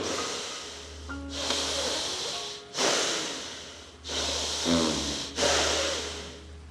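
Bhastrika (bellows breath) pranayama: a man breathing in and out forcefully, about four hissing breaths of roughly a second each, over faint background music.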